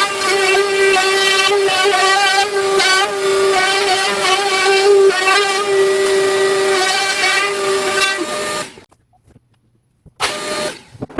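A DeWalt trim router running at full speed with a steady high whine while cutting red oak on a circle jig, its pitch wavering slightly as the bit takes load. It stops abruptly about two-thirds of the way through, then runs again briefly near the end.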